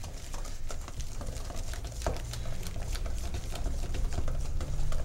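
Wire whisk beating a thick flour-and-egg batter in a stainless-steel bowl: wet stirring with repeated light clicks of the wires against the bowl, and one sharper knock about two seconds in.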